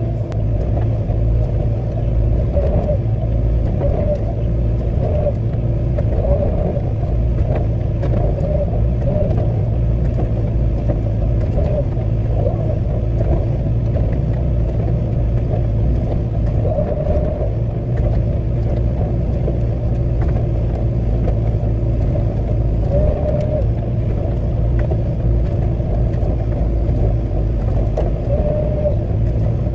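Hitachi 14-tonne excavator's diesel engine running steadily under work while the bucket is dragged flat to blade fines over a pad. Short higher tones come and go every few seconds over the steady rumble.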